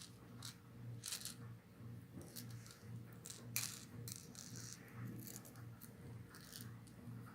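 Hard plastic fishing lures being handled, giving a scatter of light, irregular clicks and rattles, with one sharper click about three and a half seconds in. A faint low hum runs underneath.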